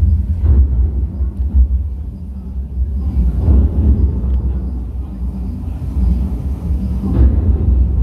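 Busy restaurant ambience: a loud, continuous low rumble under a faint murmur of diners' voices, swelling briefly about three and a half seconds in and again near the end.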